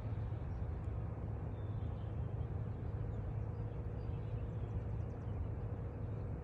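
Outdoor ambience: a steady low rumble with a faint hum and a few faint bird chirps.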